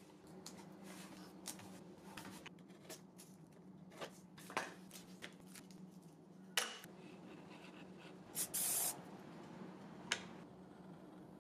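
Hands working blue painter's tape and small wooden bowtie pieces: rustling, rubbing and light knocks, with a couple of sharp taps. Near the end an aerosol can gives a quick puff, then a hiss of about half a second, the loudest sound.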